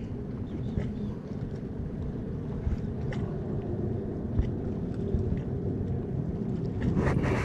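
Steady low engine rumble, with scattered light clicks from handling fishing line and tackle, and a brief louder rustle near the end.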